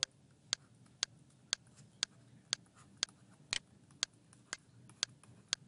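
Steady ticking: sharp clicks about two a second, evenly spaced, with a few fainter clicks between them.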